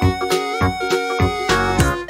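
Background music: a melody over a drum beat, a little under two beats a second.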